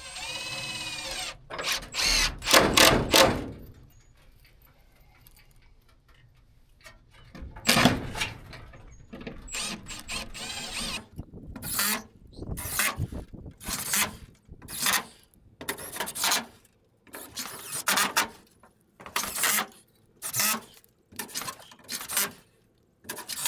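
Cordless power drill driving screws into a wooden barn door to fasten reinforcing plates or plywood. It starts with a motor whine, runs in longer spells, then in many short trigger bursts about a second apart.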